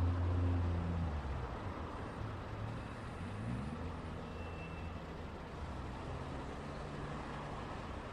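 Road traffic: a heavy vehicle's engine hums loudest in the first second, then another engine rises in pitch about three seconds in as a vehicle pulls away, over a steady wash of tyre and road noise.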